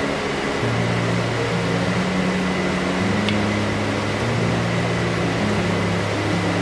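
Steady rushing, fan-like background noise of a commercial kitchen, under low background-music notes that change pitch about once a second; a faint tick about three seconds in.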